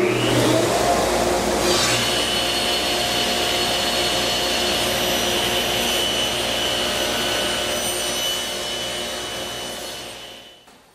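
Table saw running while a miter cut is pushed through on a sled: a steady whir with a high whine that builds over the first two seconds and winds down over the last few seconds.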